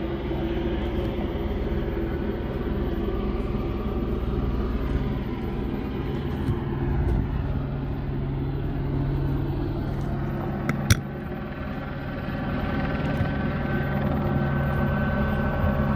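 A steady engine hum, with one sharp click about eleven seconds in.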